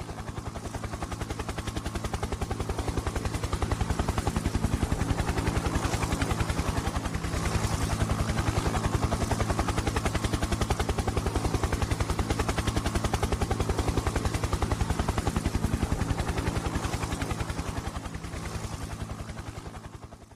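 Helicopter in flight: a rapid, even beat of rotor blades over a steady engine drone. It swells in over the first few seconds and fades near the end.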